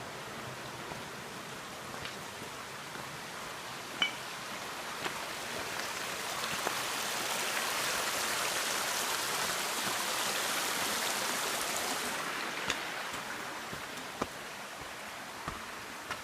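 Rushing water of a mountain waterfall cascade: a steady hiss that swells louder for several seconds in the middle, then eases. A few small clicks sound through it.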